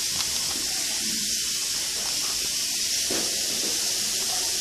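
Steady high-pitched hiss of a webcam microphone's own background noise, with a few faint soft clicks.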